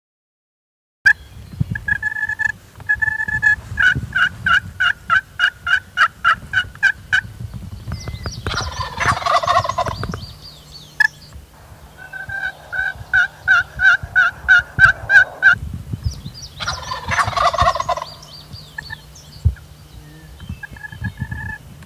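Wild turkey calling: runs of turkey yelps, about four notes a second, starting about a second in. Twice the yelping gives way to a loud, rattling gobble from a tom turkey, the first about eight seconds in and the second about sixteen and a half seconds in.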